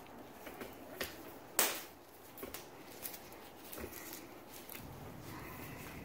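Handling noise from gloved hands working a jet-ski throttle cable: scattered light clicks and rustles, with one sharper click about a second and a half in.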